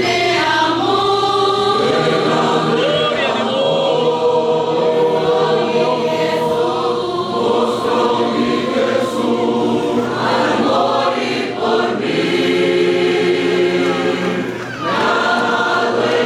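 Choir singing a Spanish worship song in several voices, holding long notes, with a short break near the end before the voices come back in.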